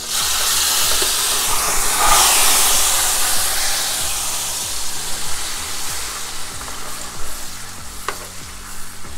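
Rubbed sweet potato greens going into hot vegetable oil in a pot and sizzling loudly at once; the sizzle is strongest about two seconds in and slowly dies down.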